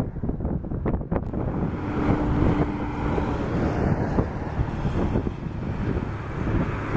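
Wind buffeting the microphone over road traffic: cars and motorcycles driving past, with a brief steady engine hum in the first half.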